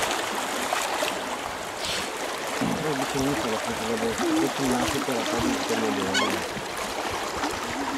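River water rushing and splashing past a wooden log raft drifting downstream, a steady noise. An indistinct voice murmurs from about two and a half to six seconds in.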